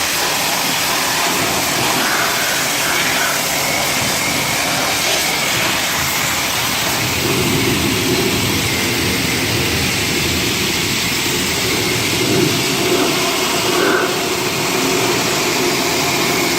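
Car-wash pressure washer wand spraying a high-pressure jet of water into a car's engine bay: a steady, loud hiss.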